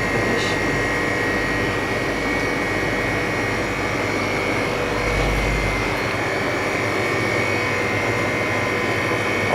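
Steady whirring hum of an LCD freezer machine's refrigeration compressor and cooling fan, with a thin steady high whine over it and a brief low rumble about five seconds in.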